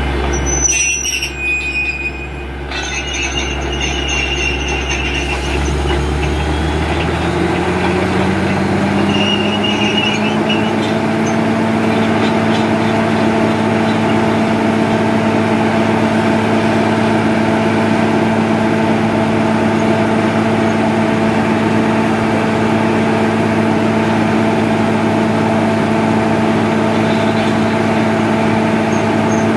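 Truck-mounted water-well drilling rig running, with a brief high squeal about a second in. The engine speed rises between about six and ten seconds in and then holds steady as compressed air blows dust and cuttings out of the borehole.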